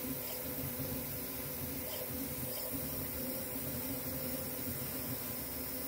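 Delta 3D printer running mid-print: its stepper motors whir with a fluttering, uneven pattern as the effector moves, over a steady steady fan hiss and a low hum.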